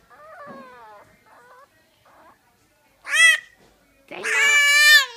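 Tiny Boston Terrier puppy, sick with an upper respiratory illness, crying in high-pitched whines that fall in pitch. A few faint cries come first, then a short loud yelp about three seconds in, and a long loud wailing cry near the end, the kind heard as "momma".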